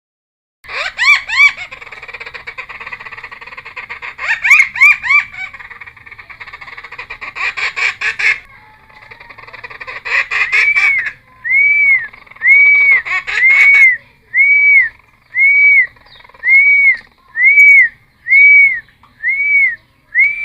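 Cucak timor singing loudly: a varied, chattering song of rising whistled glides and fast notes, then, about halfway through, a run of about nine identical arched whistles at roughly one per second.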